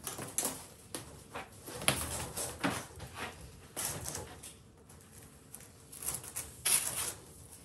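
Radiant tubing and a wire-fence mesh cylinder being handled as the tubing is wrapped around the mesh: irregular rattles, scrapes and light knocks of wire and plastic.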